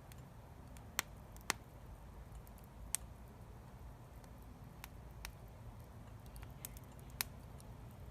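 Wood fire crackling: scattered sharp pops and snaps, about seven in eight seconds, over a low steady rumble of the burning.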